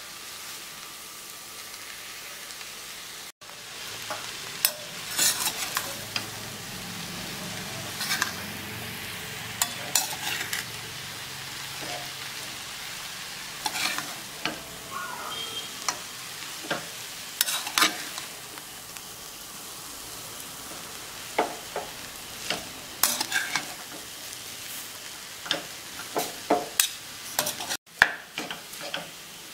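Hakka noodles sizzling in a metal kadai over a gas flame as they are tossed with a metal spoon and slotted spatula, the utensils clinking and scraping against the pan at irregular moments over a steady frying hiss.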